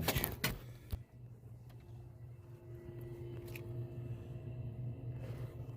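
A few sharp clicks in the first second, then a faint steady low hum.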